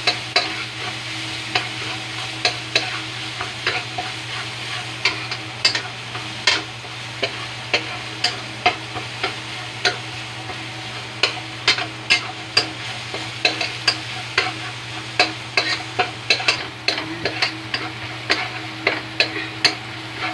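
Minced garlic sautéing in a little oil with a light steady sizzle, while a metal spatula scrapes and taps against the metal wok in short, sharp strokes about once or twice a second.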